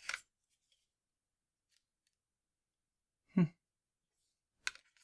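Near silence, broken by a couple of faint short clicks and one brief voice-like sound about three and a half seconds in.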